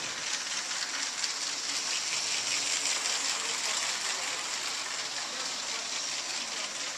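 Remote-controlled LEGO train running on plastic track: a steady hissing whir of the battery-powered motor and wheels.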